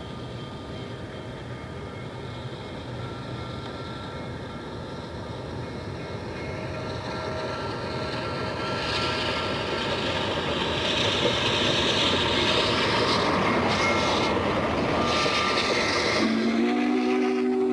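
Steam train running, its rumble and hiss growing steadily louder as it draws near. A steam whistle with several notes starts blowing near the end.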